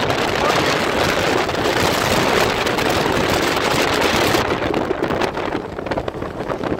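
Strong typhoon wind buffeting the microphone over high waves surging onto a sandy beach, a continuous loud rushing noise. It eases and loses some of its hiss about two-thirds of the way through, then picks up again.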